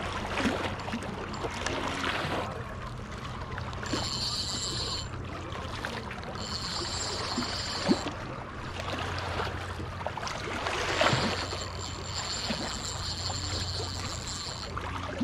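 Spinning reel being cranked to bring in a hooked pink salmon, its thin high whine coming and going in three spells, over water lapping and a steady low hum.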